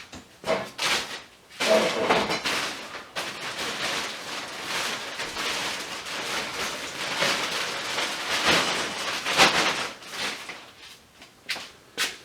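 Irregular scraping and rubbing from cleaning white goop off a part salvaged from a dismantled VFD, with a few short knocks of handling near the start and end.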